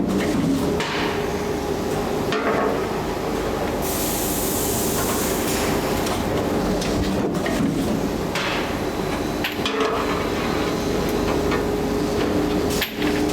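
Machinery running with a steady hum under continuous clanking and rattling, with scattered knocks throughout.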